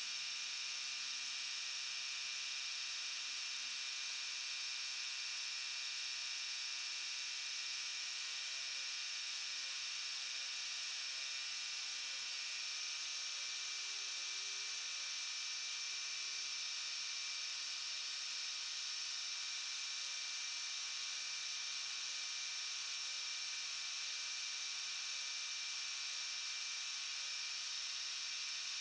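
Vertical milling machine with a 5/16-inch end mill cutting out the metal part's centre, the machining heard sped up as a steady, high whine. The pattern shifts slightly about twelve seconds in.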